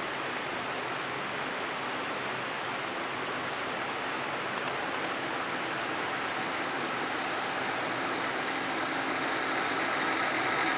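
Orpat Money Saver Silencio BLDC ceiling fan spinning up after being switched on: a steady rush of moving air that grows gradually louder, with faint high-pitched tones coming in near the end.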